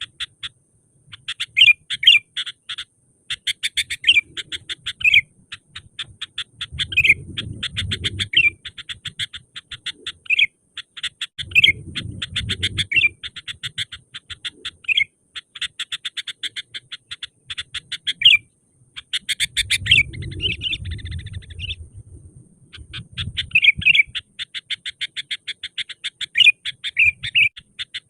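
Sooty-headed bulbul (kutilang) calling in full voice: long runs of rapid chattering chirps broken by louder whistled notes, with a brief pause about two-thirds of the way through. A few soft low rumbles sit underneath.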